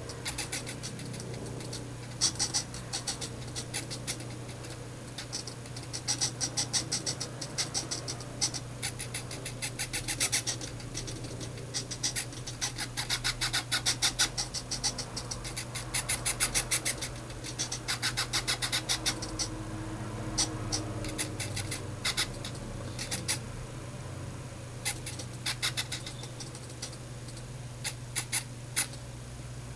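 Two hobby RC servos in a pan-tilt mount buzzing and clicking in short bursts of gear chatter as they jog the camera to follow a colour-tracked target, over a steady low hum.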